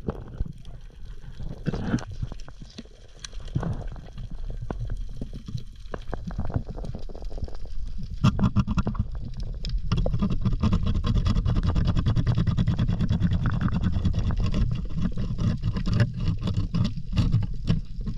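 Underwater sound through a camera housing: a low rumble of water movement with many sharp clicks and knocks. It gets louder and busier about eight seconds in, as gloved hands grip and shift against reef rock to free a spear stuck among the rocks.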